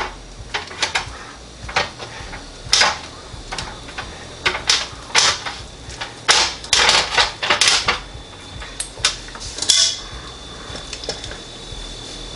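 Metal kitchen tongs clinking and scraping against a stainless wire-mesh air fryer basket and the Instant Pot's steel inner pot, in irregular bursts of clicks, as pieces of cooked beef rib are lifted and set down. A faint steady high tone comes in near the end.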